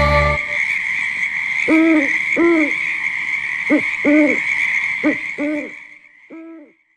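A series of about eight short hooting calls, each rising and falling in pitch, over a steady high-pitched hum; the hum and calls fade out near the end.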